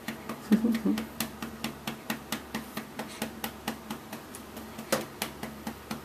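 A hand patting a baby's back to burp it: quick, even pats, about four a second, with a brief low vocal sound about half a second in.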